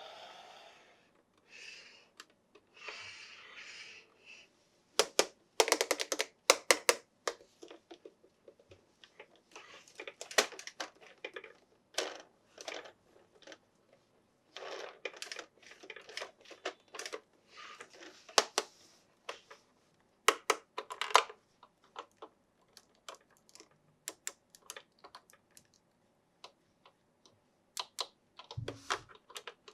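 Toy packaging being handled and opened: irregular sharp clicks, taps and short crinkly rustles, some in quick clusters, with soft sliding rustles in the first few seconds.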